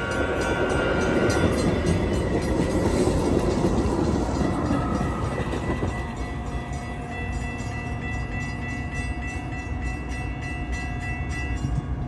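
Bilevel commuter passenger cars rolling past close by, a dense steady rumble of wheels on the rails. About six seconds in the sound drops to a quieter, more distant running as the cab car pulls away, with steady high tones in the background.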